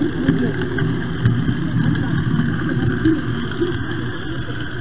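Model train running along its track, a steady rumble and whir picked up by a camera riding on the train.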